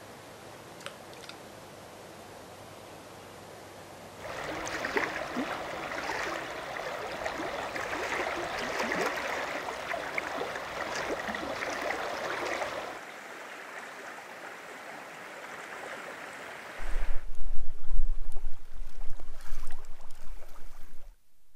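Shallow river rushing over rocks in a riffle, a steady even rush of water. Near the end a louder, uneven rumble takes over.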